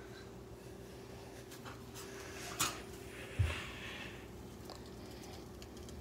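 Kitchen handling noises over a steady low hum: a sharp click about two and a half seconds in, then a dull thump a moment later.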